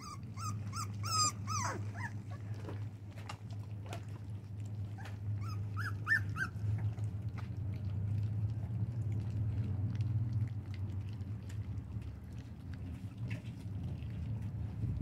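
Four-week-old American bully puppies whimpering and yipping in short high squeaks: a quick string of them at the start and a few more about six seconds in. Small wet clicks of lapping and smacking as they eat mush from a pan run throughout, over a steady low hum.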